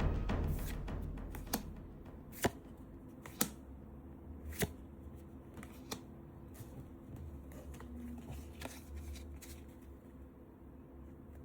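Trading cards and their packaging being handled, with a few sharp light clicks about a second apart, then quieter rustling. Music fades out in the first couple of seconds.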